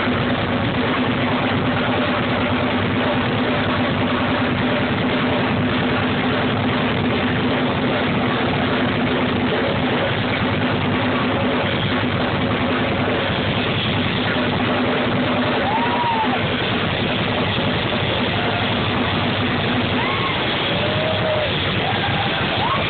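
Live rock band with a drum kit playing loud, heard as a dense, distorted wash of sound. A note is held through most of it, and a few short bending notes come in near the end.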